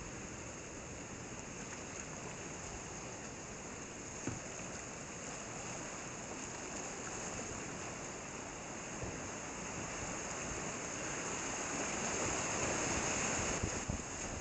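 Whitewater creek rushing around a kayak, growing louder over the last few seconds as the boat heads into a rapid. There is one short knock about four seconds in and a few quick thumps near the end.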